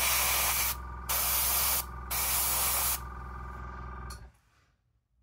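Airbrush spraying acrylic paint: three short bursts of loud hiss with a softer hiss between them and after them, over a steady low hum. Everything cuts off about four seconds in.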